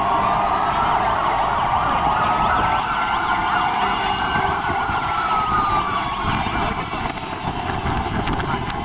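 Wailing sirens of several emergency vehicles, overlapping, each slowly rising and falling in pitch, with the clearest one fading out about six seconds in.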